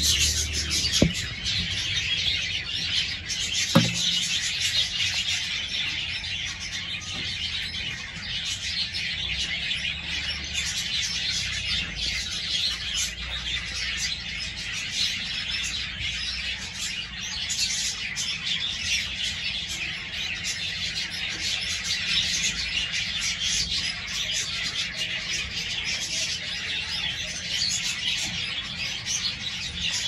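A flock of aviary birds chirping and chattering continuously. Two sharp knocks sound about a second in and just before four seconds in.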